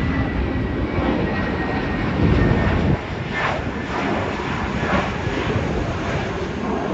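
Twin-engine narrow-body jet airliner climbing out after takeoff: steady engine noise with a deep rumble, easing slightly about three seconds in.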